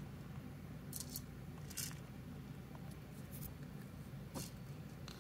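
Faint, brief scratchy rustles and clicks, about five spread across the few seconds, as a rabbit noses and tips a plastic wobble treat-dispenser toy, over a low steady hum.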